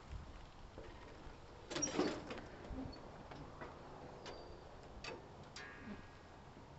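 Knocks and clunks of a person climbing aboard a small compact tractor on a wooden trailer deck, with the loudest clatter about two seconds in as he settles into the seat, then a few lighter knocks and a short creak near the end.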